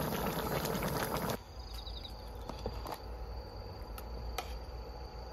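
Insects chirping steadily in a high, thin tone. Over the first second or so a louder rushing noise plays on top of them and then cuts off abruptly.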